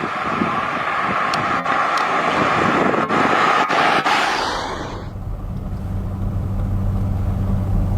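A 1959 Cadillac's 390 V8 car on the move: wind and road noise with a few sharp ticks for about five seconds, then the sound switches abruptly to a steady low engine drone.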